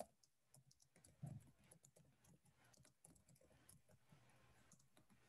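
Faint computer keyboard typing: soft, irregular key clicks.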